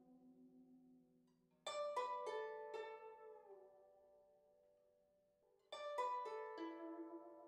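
Slow background music of plucked strings: two runs of plucked notes, about two seconds in and again near six seconds, each ringing out and fading over a faint held low note.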